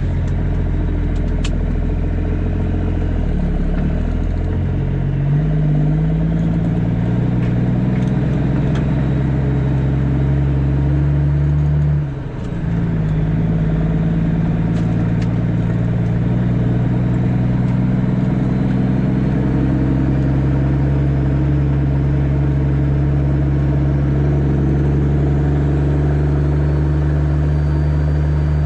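Caterpillar C13 inline-six diesel of a Kenworth W900B dump truck running under load. Its note rises about five seconds in, breaks off briefly at about twelve seconds as at a gear change, then comes back and holds steady.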